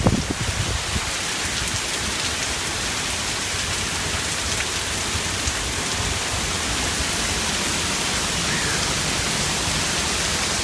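Heavy rain pouring down steadily, a dense even hiss with no let-up. A few brief gusts of wind buffet the microphone right at the start.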